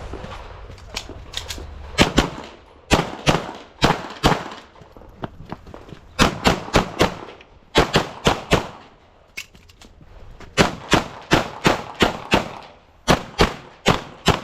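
Rapid pistol fire from a practical-shooting stage run: many quick shots, often in pairs or short strings, with brief pauses a few seconds in and about two-thirds of the way through.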